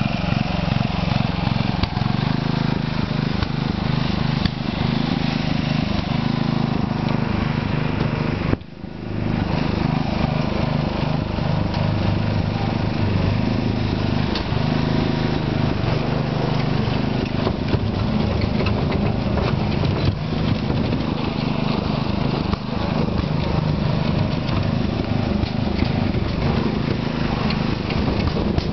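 Tractor engine running steadily, with a brief dropout about nine seconds in.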